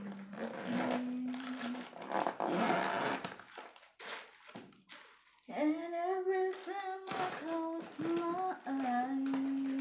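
A woman humming a tune to herself, holding notes and sliding between them, while packaged chocolates and plastic wrapping rustle and click in her hands. The rustling is heaviest in the first half; the humming grows louder from about halfway through.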